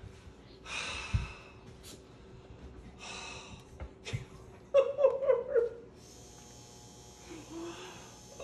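A man breathing heavily with emotion, with breathy gasps and exhales. About five seconds in come a few short, broken vocal sounds, like choked sobs.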